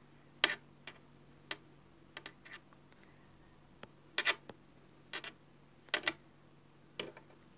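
Knitting needles clicking against each other as stitches are worked by hand: about a dozen light, sharp clicks at uneven intervals.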